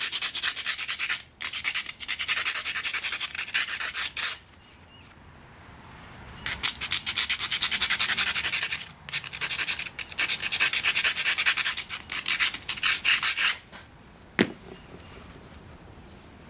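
A fine grinding stone is rubbed rapidly back and forth along the edge of a Texas tab stone preform, abrading the edge into a bevel that sets up platforms for pressure flaking. There are two spells of quick scraping strokes about two seconds apart, then a single sharp click near the end.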